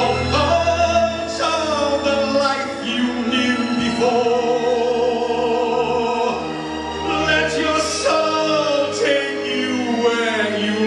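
Man singing into a microphone over backing music, holding long notes with vibrato.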